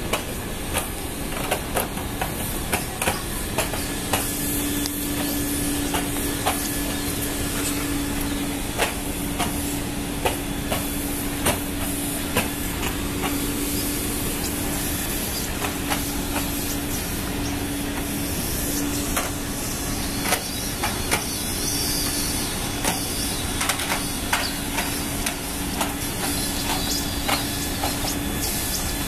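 Ship's machinery running: a loud, steady hiss and rumble studded with irregular sharp ticks and knocks. A steady hum sets in about four seconds in and stops near the end.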